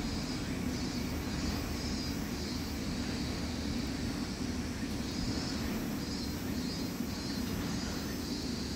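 A steady mechanical drone of a running machine: a constant low hum with a wavering higher whine above it.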